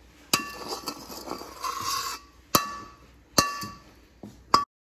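Metal spatula scraping cooked Asian greens out of a wok into a ceramic bowl: four sharp, ringing clinks of metal on the pan and bowl, with scraping and sliding between the first two. The sound cuts off suddenly near the end.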